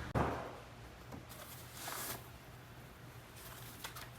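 Faint handling noises: a soft scrape just after the start that fades out over about half a second, then a few lighter rustles and scrapes.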